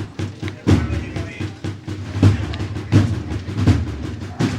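Spanish bugle-and-drum band (banda de cornetas y tambores) music: a slow, steady march beat of deep bass-drum strokes about every three quarters of a second, with snare-drum strokes between.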